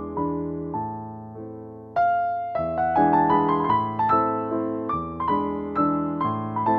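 Background piano music: struck notes and chords that fade after each strike, getting louder about two seconds in.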